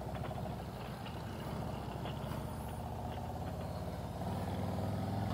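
Harley-Davidson Road Glide Limited's Milwaukee-Eight 114 V-twin running at low speed as the motorcycle rolls off, with its low, pulsing exhaust note heard from the rider's seat. The engine grows louder about four seconds in.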